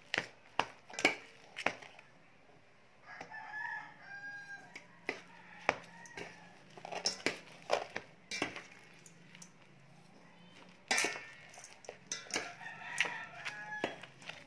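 A metal spoon clinking and scraping against a stainless steel mixing bowl as grated coconut is stirred. A rooster crows twice in the background, about three seconds in and again near the end.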